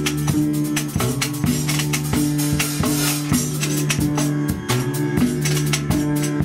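Acoustic improvised music: a guitarrón plays a repeating low figure under a steady beat of drum kit and tambourine hits.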